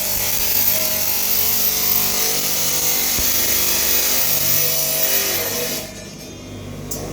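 A power tool working metal: a steady, harsh, hissing grind that stops about six seconds in, leaving a lower hum.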